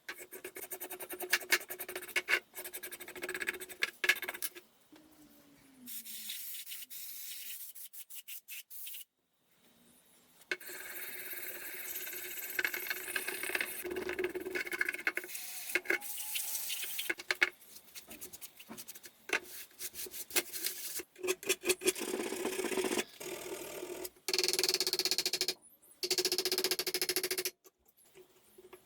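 Hand work on a rusty metal padlock: repeated scraping and rubbing with many sharp metal clicks and taps, in short segments that start and stop abruptly.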